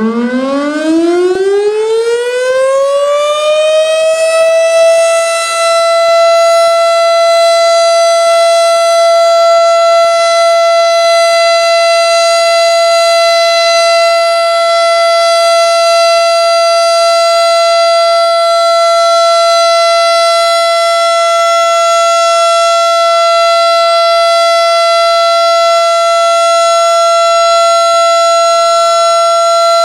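Federal Signal STH-10 tornado siren sounding a test. It winds up, its pitch rising over the first five seconds or so, then holds a loud, steady tone.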